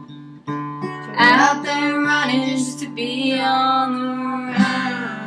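Acoustic guitar strumming under a voice singing a long, drawn-out line of the song's ending.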